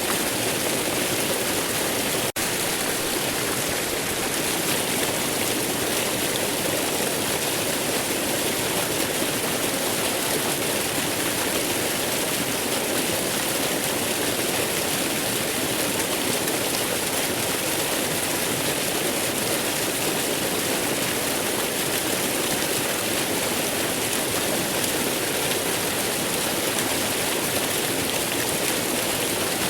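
Waterfall: a steady, dense rush of falling water. There is one split-second dropout about two seconds in.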